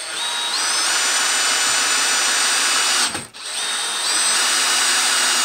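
Dewalt Atomic brushless hammer drill driving wood screws into a 4x4. The motor whine steps up in pitch as it comes up to speed, stops briefly about three seconds in, then starts again for the next run.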